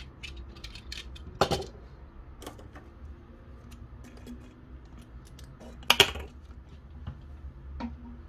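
Plastic objects being handled and set down on a wooden tabletop, a yellow utility knife and a cut-off plastic bottle neck with its screw cap. There are scattered light clicks and two sharp knocks, one about a second and a half in and a louder one about six seconds in.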